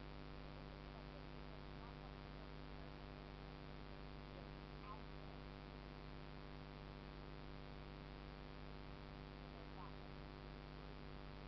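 Steady electrical hum and hiss, the recording device's own noise, with a few faint short chirps about two, five and ten seconds in.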